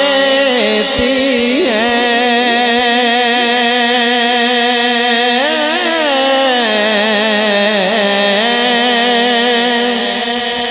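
Naat singing: a male voice sings a long wordless melismatic passage, held notes ornamented with sliding glides, over a steady held vocal drone.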